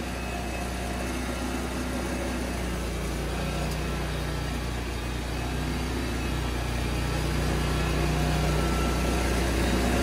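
Engine of a Vigorun MTSK1000 remote-control flail mower running steadily, getting a little louder over the second half.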